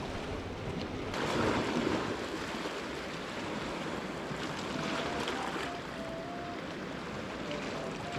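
Sea waves washing against the rocks of a rocky shore, a steady surf wash with a louder surge about a second in.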